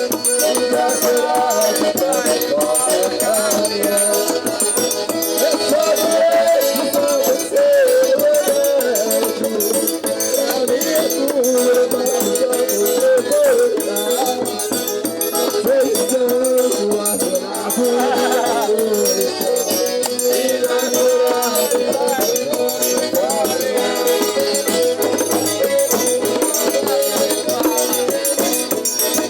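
Sanfona (button accordion) playing a tune with sustained, shifting chords, over a steady shaker rattling in rhythm.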